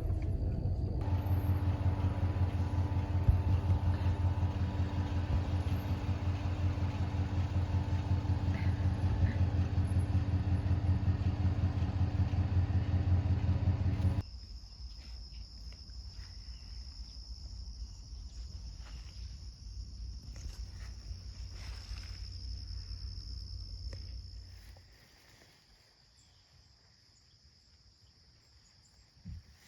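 Pickup truck engine running steadily with a low, even hum. About fourteen seconds in it cuts off suddenly, leaving a steady high chirring of crickets over a faint low rumble, and that fades to near silence about ten seconds later.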